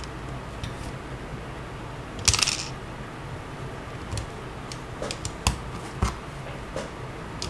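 Plastic Lego pieces being handled: a short rattle about two seconds in, then scattered small clicks.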